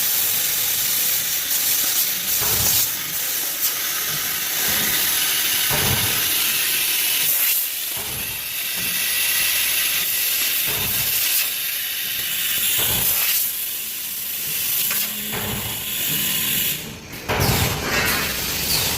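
Laser tube cutting machine running: a steady loud hiss with a few short low thumps at irregular intervals.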